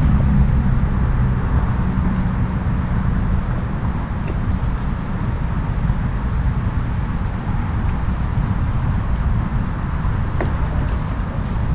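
Steady low outdoor rumble with a couple of faint clicks.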